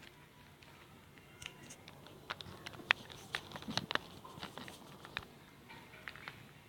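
Handling sounds as the portable table fan and its packaging are unboxed: scattered light clicks and taps, thickest in the middle and loudest about three seconds in.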